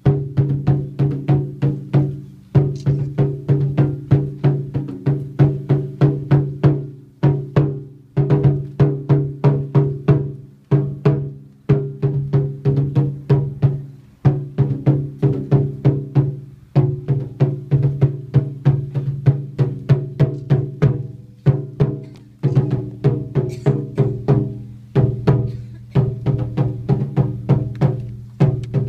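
Kagura taiko drum beaten in a steady run of ringing strokes, about three or four a second, in phrases broken by short pauses, as the music for a ritual dance.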